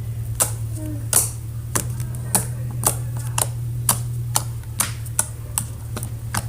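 Jelly-type slime being squeezed and stretched by hand, making sharp clicking pops about twice a second, over a steady low hum.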